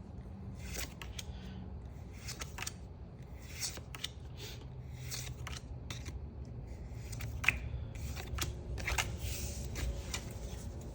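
Pokémon trading cards being handled and slid past one another, a string of short, irregular papery swishes and scrapes.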